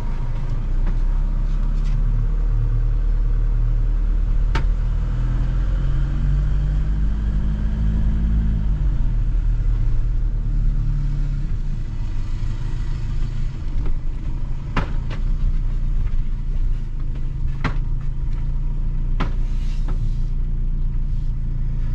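Motorhome engine heard from inside the cab while the vehicle is driven slowly. The engine note rises for a few seconds, drops back and then runs steadily, with a few sharp clicks in the second half.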